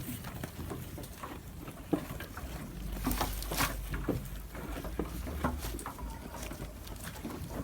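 Goat chewing crunchy food close to the microphone: irregular crunches and crackles, with a low rumble underneath.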